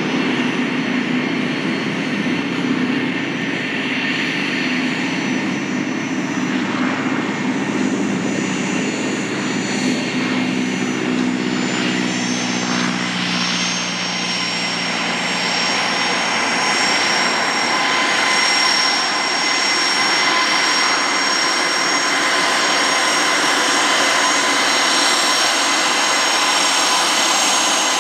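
Boeing E75 Stearman biplane's radial engine running at takeoff power as the plane rolls, lifts off and climbs away. Its low, propeller-driven drone fades about halfway through, and a steady higher whine comes up in the second half.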